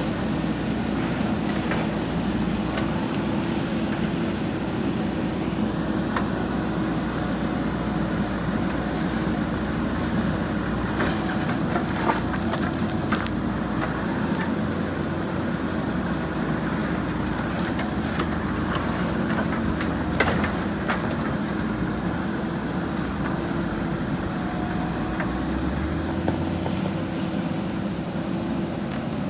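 JCB backhoe loader's diesel engine running steadily under work, with scattered clanks and knocks from the machine throughout.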